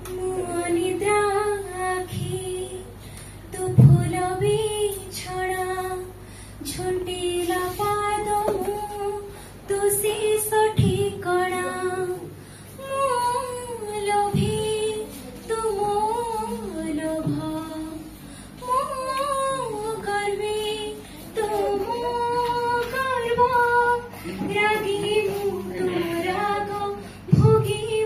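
A young woman singing a song solo into a handheld microphone, in phrases of one to two seconds with held, wavering notes and short breaths between.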